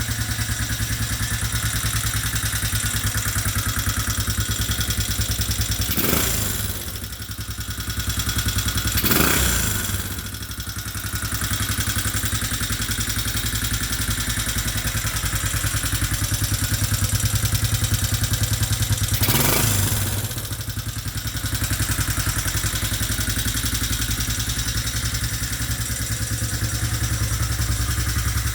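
Arctic Cat 250 2x4 ATV engine idling steadily, blipped up three times and dropping straight back to idle each time. It is running on a new 32 mm PWK-style flat-slide carburetor, with the idle now clean and no longer hanging after a blip: the fault is cured.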